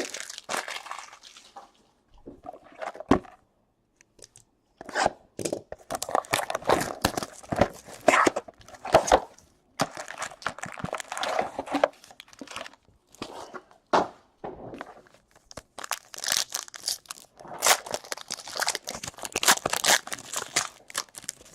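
Trading-card pack wrappers being torn open and crinkled, in irregular bursts with short pauses.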